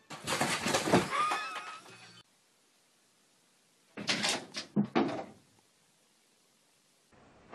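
Two bursts of thumping and clattering, each a second or two long, the first with a brief squeaky wavering sound in it.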